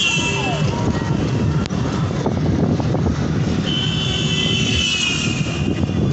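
Auto-rickshaw engine running steadily as it rides along the road. A repeated falling tone is heard in the first second, and a high wavering tone comes in about four seconds in.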